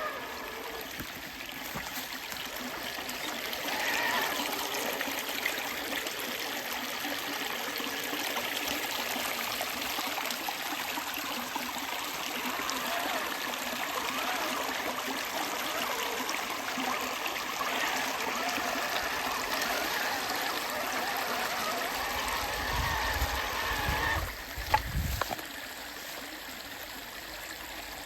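Creek water running and trickling over rocks. About 22 seconds in there is a low rumble for a few seconds, ending with a sharp knock.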